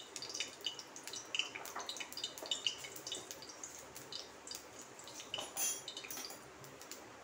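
Hot mustard oil in an aluminium kadhai on a low gas flame, giving off light, irregular crackles and pops. One brief louder noise comes about five and a half seconds in.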